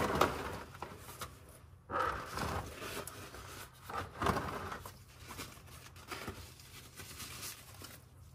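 Plastic oil drain pan being dragged out across a concrete garage floor, scraping and rustling in a few short, irregular bursts, the last about halfway through.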